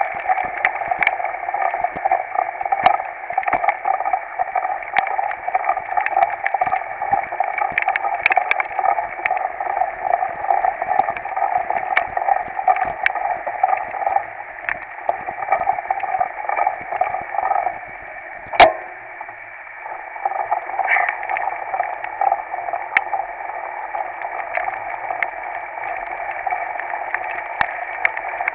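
Mountain bike riding a wet, muddy trail in heavy rain, heard from a camera mounted on the bike: a steady rushing of rain, wind and tyres with many small clicks and rattles. One sharp knock comes about two-thirds of the way through.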